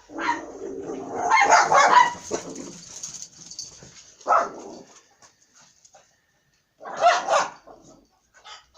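A dog barking in bursts, loudest about a second and a half in, then shorter barks around four and seven seconds in.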